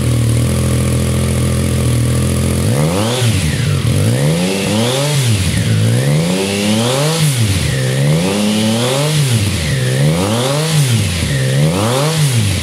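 Triumph Tiger Sport 660's inline three-cylinder engine heard through a GPR low-position silencer. It idles steadily at first, then from about three seconds in is revved in a run of quick throttle blips, roughly one a second, each rising and falling in pitch.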